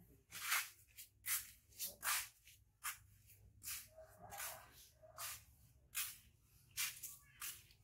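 Footsteps scuffing over a dry dirt yard: a series of short gritty scrapes, unevenly spaced at about one or two a second, over a low steady hum.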